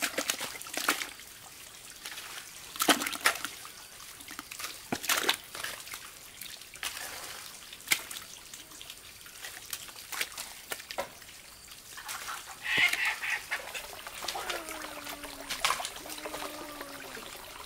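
Water splashing and trickling, with irregular splashes every second or two and a busier patch of splashing about two-thirds of the way through.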